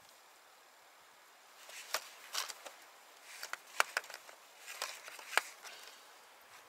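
Hands rummaging through small parts and tools in an open plastic compartment box: a run of light clicks and rustling with a few sharp clacks, lasting about four seconds.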